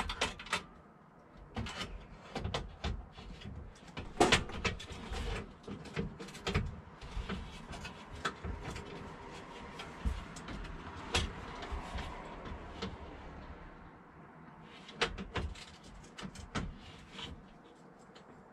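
Sharp clicks and knocks with handling scrapes as a built-in oven's door is worked into place, the loudest knock about four seconds in.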